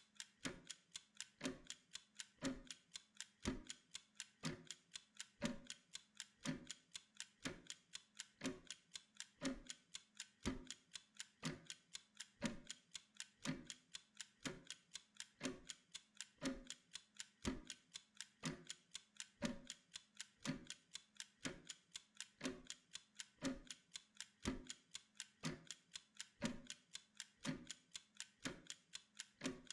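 Mechanical kitchen timer ticking steadily as it counts down, about two ticks a second.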